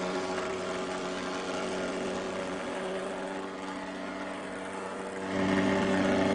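Motorised insecticide fogging machine running with a steady, buzzing engine drone. It grows louder near the end and cuts off abruptly.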